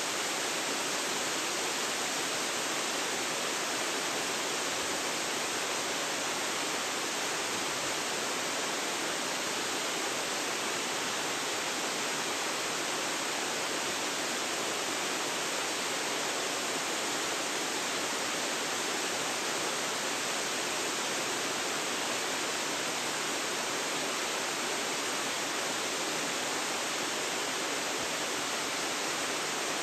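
A waterfall's steady, even rush of falling water, with no change in level.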